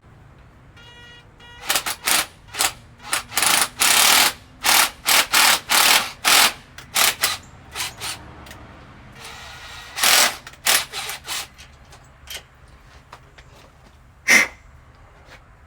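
Pneumatic shop tool run in a series of short, loud bursts, over a dozen in quick succession, then one more near the end, on the truck's bell-housing bolts.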